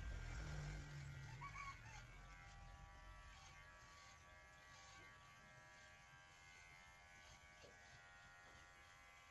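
Electric hair clippers buzzing faintly and steadily during a haircut.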